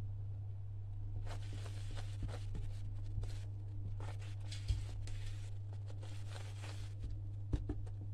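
Silicone spatula stirring a thick mix of boiled honey and flax seeds in a nonstick frying pan: soft, repeated scraping strokes, with a few sharp taps, over a steady low hum.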